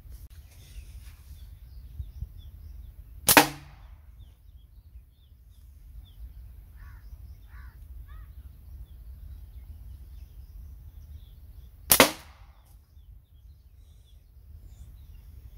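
Two slingshot shots about eight and a half seconds apart, each a single sharp snap as the bands are released.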